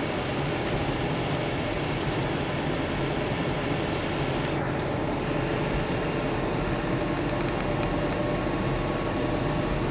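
Steady cabin noise of a car driving on a snowy highway: engine hum and tyre and road noise, with the defroster fan blowing on full.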